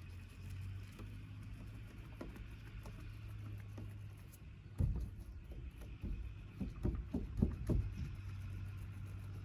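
A steady low hum, with a cluster of irregular dull knocks and thumps from about five to eight seconds in.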